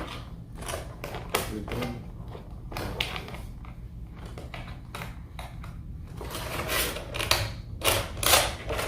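Action-figure packaging being handled: irregular plastic clicks and rustles as the figure is worked loose from its plastic tray and ties. The sounds grow louder and come closer together about seven seconds in.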